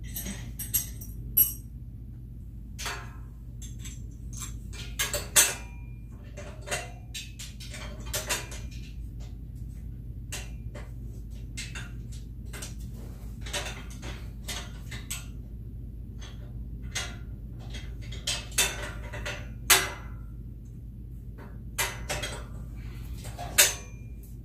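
Plastic mesh baskets and poles of a flat-pack IKEA cart knocking and clicking against each other as they are fitted together by hand: irregular sharp taps and clicks, a few louder knocks.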